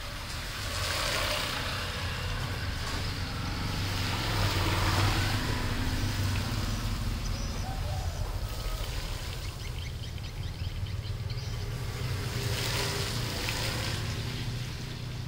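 Background road traffic: a steady low rumble, with noise swelling and fading as vehicles pass, about a second in, around four to five seconds, and again near the end.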